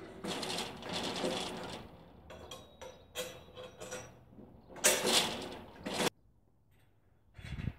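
Galvanised steel frame of a trimming crate being worked by hand: metal parts rattling, scraping and clanking in irregular bursts, with some metallic ringing. The loudest clatter comes about five seconds in and stops abruptly, and a shorter one follows near the end.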